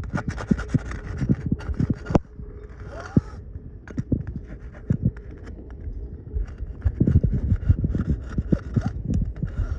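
Irregular knocks and scraping strokes of a hand scraper working barnacles off a dinghy's hull.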